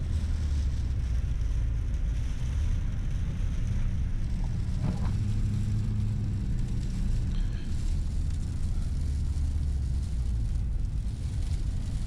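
Duramax turbo-diesel V8 pickup driving, heard from inside the cab: a steady low engine and road drone whose pitch steps up and down a few times.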